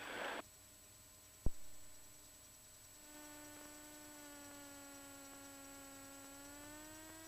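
A single click about a second and a half in, then a faint electrical whine in the aircraft's intercom audio from about three seconds on: a steady tone with overtones whose pitch sags slowly and rises again near the end.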